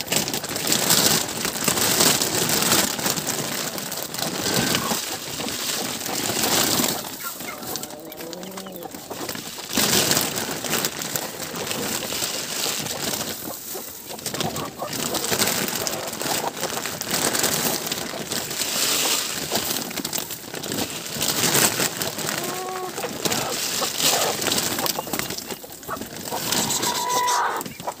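Farmyard poultry clucking and calling, with a few short wavering calls, over a constant noisy hiss of rain and rustling.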